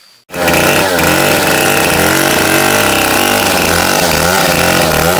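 Chainsaw running at high revs, its pitch wavering up and down as it works. It starts abruptly a moment in.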